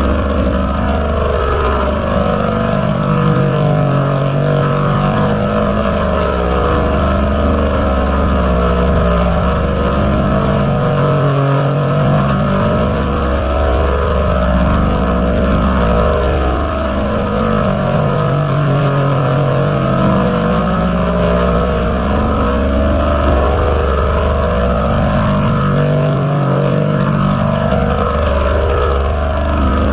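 Heavily distorted, effects-processed 'G-Major' style audio: a loud continuous droning wash with pitch sweeps that curve up and down, repeating every few seconds.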